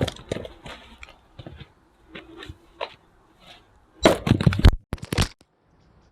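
Firewood being split on a wooden chopping block: scattered sharp knocks and wood cracking, then a dense run of loud cracks and clattering split pieces about four seconds in.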